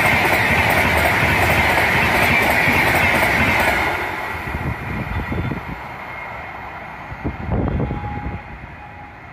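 An express train's LHB passenger coaches rush past at speed, wheels clattering on the rails. The sound drops about four seconds in as the last coach goes by, then fades away as the train recedes.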